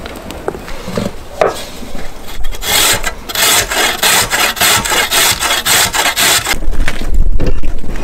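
A carrot being grated on a stainless steel box grater: quick rasping strokes, about three a second, for around four seconds in the middle. Near the end a low rumble follows.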